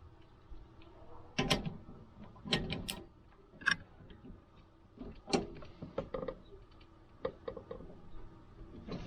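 Hand tools working a bolt, most likely a torque wrench being set and pulled to 35 foot-pounds: a handful of sharp metallic clicks and knocks about a second apart, then quicker, lighter ticking in the second half.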